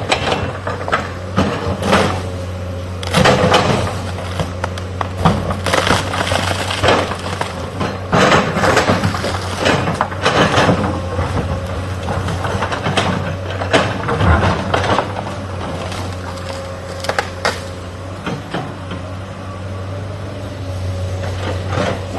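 Excavator's diesel engine running steadily while the bucket breaks and crushes material, giving many irregular cracks and crunches, thickest in the first half.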